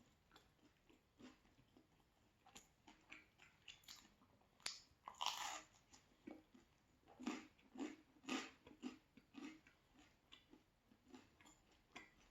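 Close-up chewing and crunching of pizza: a string of short crunches, with the loudest, longer crunch about five seconds in and a quick run of crunches between about seven and nine seconds.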